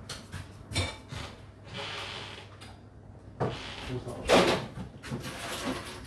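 Whirlpool WFO3P33DLXUK dishwasher running its final rinse: water sprays and swishes inside the tub in irregular surges. Knocks and clatters are heard, the loudest about four seconds in.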